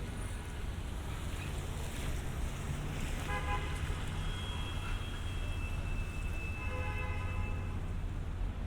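City street traffic, a steady low rumble, with short high-pitched tones over it: one about three seconds in, a thinner one lasting about two seconds, and another about seven seconds in.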